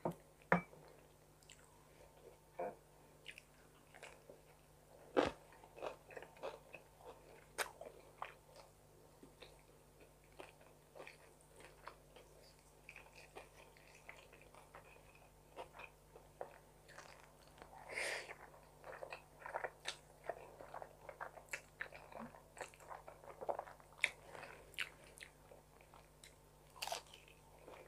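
A person chewing and biting food close to the microphone, mukbang-style: faint, irregular clicks and crunches of eating.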